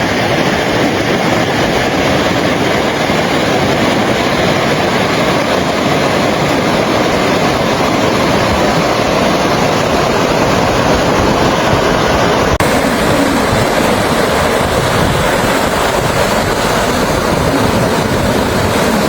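Steady loud roar of fast-flowing floodwater, with a change in its sound about two-thirds of the way through where one clip gives way to another.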